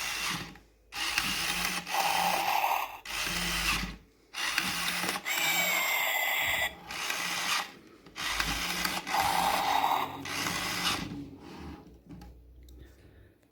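Small motor and gearbox of a Furby-style animatronic toy whirring in about four runs with brief pauses between them, fading out near the end.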